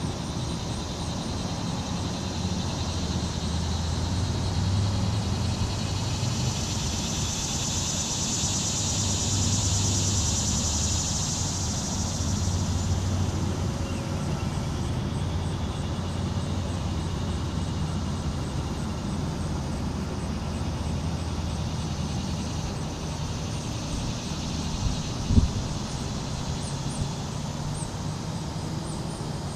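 Steady outdoor background noise: a low rumble with a high hiss that swells in the middle and fades again, and one sharp knock near the end.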